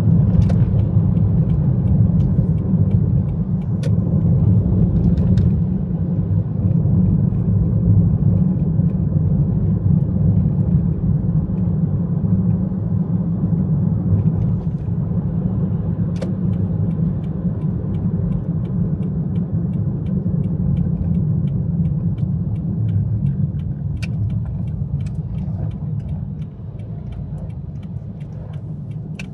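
Steady low road rumble of a car being driven, tyre and engine noise, with a few faint clicks; it eases somewhat near the end.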